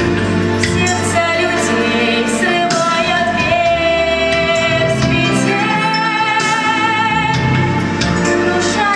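A female voice singing a song over an instrumental backing track, holding long, slightly wavering notes.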